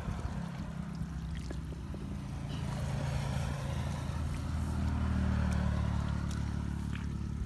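A motor engine runs with a steady low hum that grows louder through the middle and eases off near the end. Muddy water splashes as a bucket is bailed.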